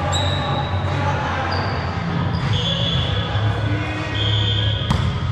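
Sneakers squeaking on an indoor court floor during volleyball play: several short, high squeaks, with one sharp smack near the end.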